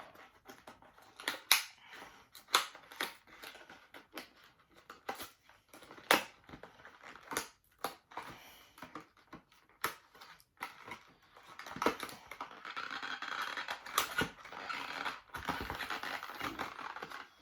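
A small cardboard box and its packaging being handled while a USB-C hub is worked out of it: scattered taps, clicks and scrapes, with a longer stretch of rustling over the last few seconds.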